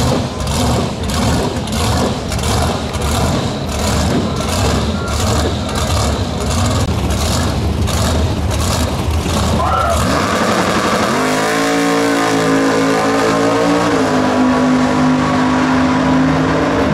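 Supercharged engine of a first-generation Chevrolet Camaro drag car idling at the starting line with a rhythmic lope, about two pulses a second. About ten seconds in it launches at full throttle, the engine note climbing steeply as the car accelerates away down the strip.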